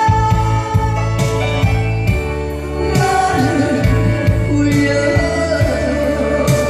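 A female vocalist singing an upbeat song live over loud amplified accompaniment with a steady drum beat.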